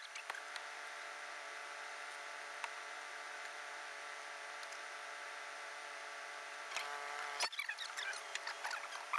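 A steady mechanical hum with a row of evenly spaced overtones over a light hiss. A few short high chirps come in near the end.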